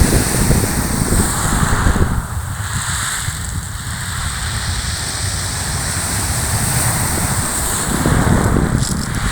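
Wind buffeting the microphone, heavy in the first two seconds and again near the end, over the steady wash of sea surf on the shore.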